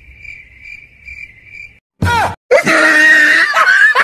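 Cricket-chirping sound effect, a high tone pulsing about twice a second, used as the awkward-silence cue; it stops near halfway. About two seconds in comes a short, loud falling sound effect, then a louder, shrill sound effect with a wavering held pitch.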